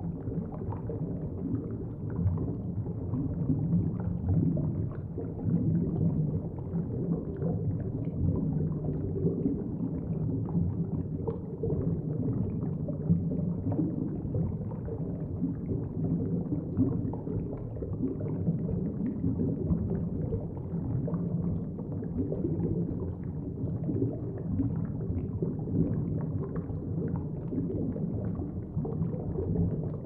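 Thick underwater bubbling: a dense, continuous stream of bubbles heard under water, a low, muffled churning flecked with many small pops.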